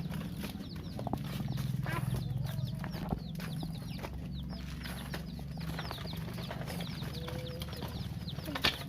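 Several chicks peeping continuously, a rapid stream of short, high, falling chirps, over a steady low hum.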